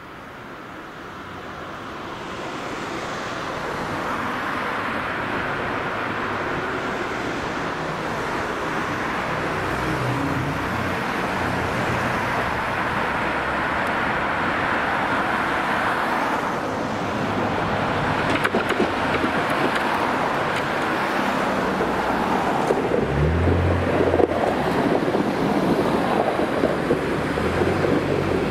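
Konstal 105N-type tram running toward and past on its track: the rumble of steel wheels on rails swells over the first few seconds, then holds loud and steady. A few short low knocks come about three quarters of the way through.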